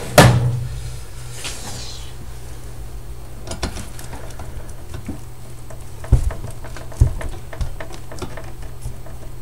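Screwdriver working a stiff Phillips-head screw in an oscilloscope's metal chassis: a sharp click at the start, then faint scattered metal ticks and two louder knocks about six and seven seconds in, over a steady low hum.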